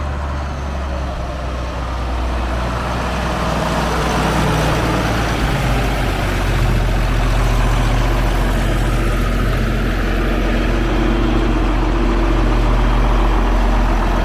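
John Deere 4440 tractor's six-cylinder turbo diesel engine running as the tractor is driven, a steady low drone that grows louder over the first several seconds and then holds.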